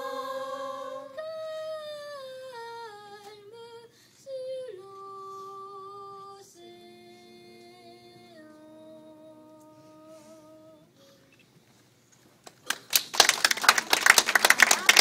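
A children's choir singing a cappella, holding soft chords that step downward and fade out. After a short pause, the audience starts applauding about 13 seconds in.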